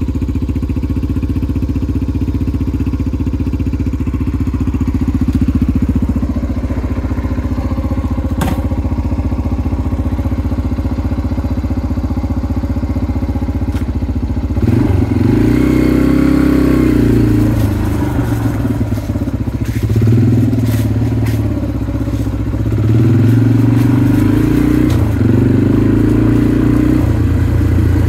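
Yamaha TT-R125 dirt bike's single-cylinder four-stroke engine idling steadily, then, about halfway through, revving up and down repeatedly as the bike is ridden off.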